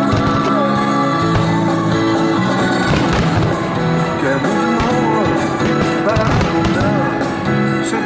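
Loud music over a sound system, with fireworks bursting and crackling over it from about three seconds in.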